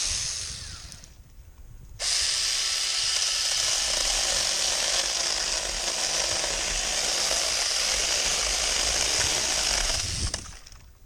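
Cordless mini chainsaw's electric motor and chain running with a high whine, dying away about a second in, starting again abruptly about two seconds in, running steadily, and winding down near the end.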